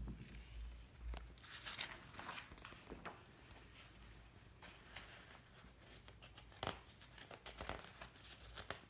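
Faint rustling and soft taps of a paperback picture book being handled and held up open, with one sharper tick about two-thirds of the way through.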